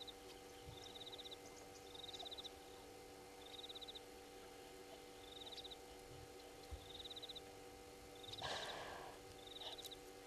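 Faint outdoor ambience: a short high trill repeats about every second, from a calling animal, over a steady faint hum. About eight seconds in comes one brief, louder noisy burst.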